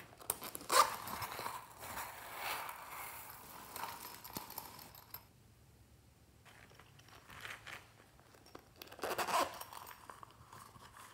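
Zipper of a small silicone pouch being pulled open in quick rasping strokes, followed by small beads spilling out onto slime in a glass dish. The zipper is worked again about nine seconds in.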